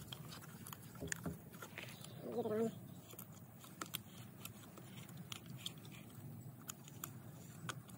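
Light clicks and small scraping noises of a plastic Oregon Speed Feed trimmer head being turned by hand onto the threaded shaft of a Stihl trimmer gearhead. A brief voice-like sound comes about two and a half seconds in.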